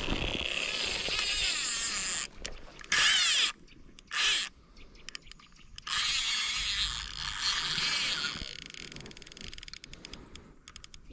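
Spinning fishing reel whirring in bursts as its handle is cranked: a long run at the start, two short bursts about three and four seconds in, then another long run in the middle.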